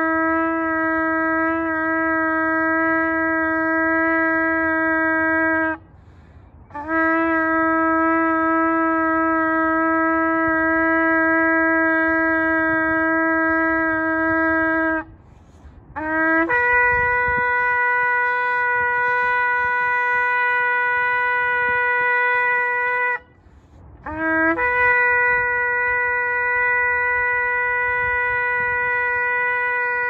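Shofar blown in four long, steady blasts. The first two hold a lower note; each of the last two starts with a brief low note and jumps up to a higher one.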